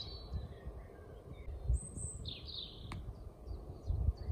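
Several songbirds chirping and calling in short, scattered phrases over a low, uneven wind rumble on the microphone, with a single sharp click about three seconds in.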